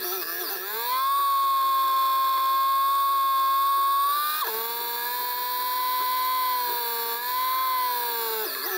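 Motorcycle engine running at high revs with a steady whine. The pitch dips and climbs back about a second in, drops suddenly about halfway through, then holds before falling again near the end.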